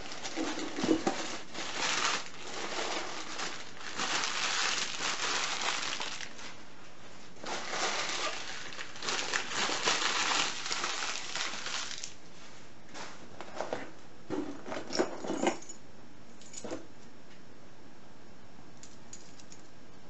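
Paper packing rustling and crumpling in long bursts as a parcel is rummaged through, then a few sharp clinks of metal keys and locks being handled, after which it goes quiet.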